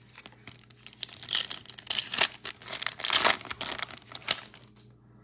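Foil wrapper of a Topps Chrome Update trading-card pack being torn open and crinkled by hand: a dense run of sharp crackles, busiest for about three seconds in the middle.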